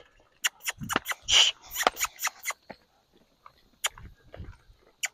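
A horse being worked on the ground: scattered clicks and knocks with a few low thuds and short breathy bursts, the loudest about a second and a half in.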